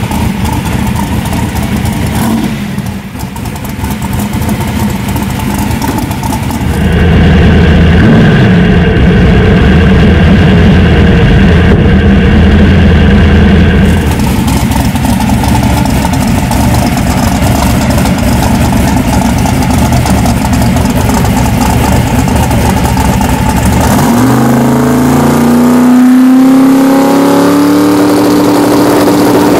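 Drag-racing Chevy S10 pickup's engine running at the line, held louder at higher revs through the middle, then climbing steadily in pitch near the end as the truck launches and accelerates away.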